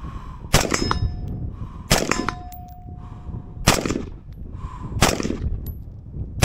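5.56 AR-style rifle firing four shots about a second and a half apart, with steel targets ringing after some of the shots.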